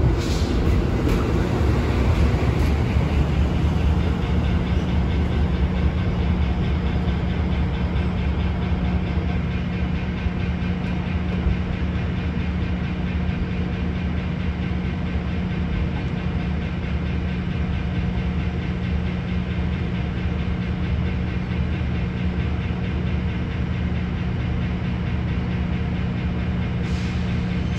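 Amtrak passenger train of Superliner bilevel cars rolling past on departure and pulling away, a steady low rumble with a diesel drone that slowly eases.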